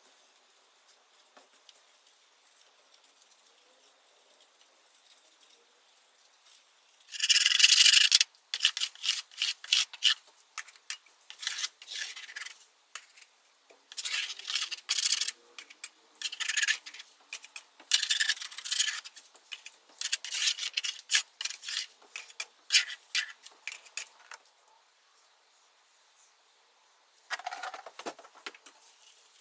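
Metal paint scraper pushed in quick repeated strokes across a wooden chair panel, scraping off softened layers of old paint. The scraping starts about seven seconds in, comes in short clusters of strokes, and stops, with one last short burst near the end.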